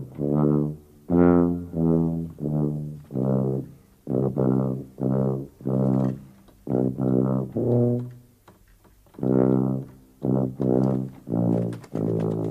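Film score music: a brass melody of short, separate notes, about two a second, with a brief pause about eight seconds in.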